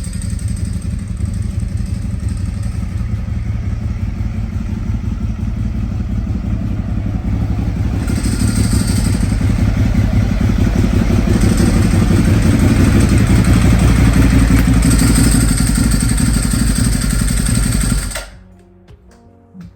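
Ducati motorcycle engine running steadily, growing louder about halfway through, then cut off abruptly near the end, leaving faint background music.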